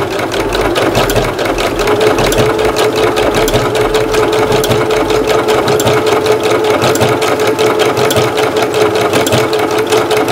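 Household electronic sewing machine running steadily at speed, sewing an overlock (overcast) zigzag stitch along a cloth edge with an overlock presser foot. It makes an even, rapid ticking of needle strokes over a steady motor whine.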